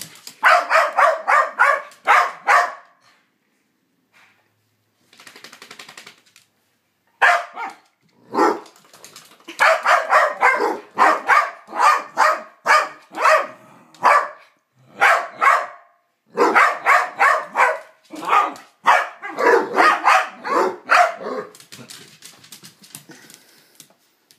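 Basset hounds play-barking at each other in quick runs of short, sharp barks, about four or five a second, broken by short pauses, with a quiet stretch a few seconds in.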